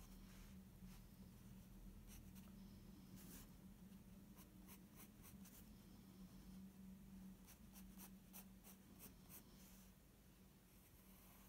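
Faint scratching of a pencil making short, quick strokes on sketchbook paper, several strokes in quick runs about halfway through and again a little later, over a low steady hum.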